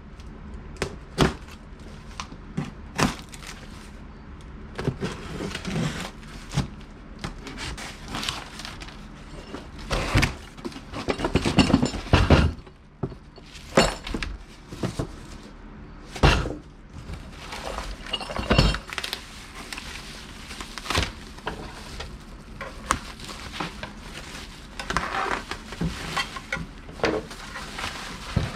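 Irregular knocks, clinks and clattering of hard objects being handled, loudest in a cluster about ten to thirteen seconds in.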